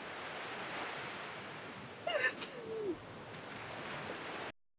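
Surf washing steadily on a beach, with a woman's short, high whimpering gasp that falls in pitch about two seconds in. All sound cuts off abruptly near the end.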